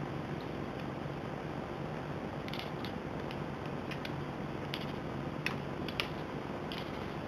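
A cat making a scattered series of faint, sharp clicks over a steady hiss.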